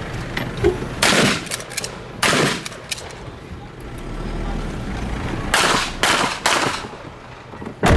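About six gunshots, irregularly spaced: two in the first few seconds, then three in quick succession past the middle and one more at the end, each with a short echo tail.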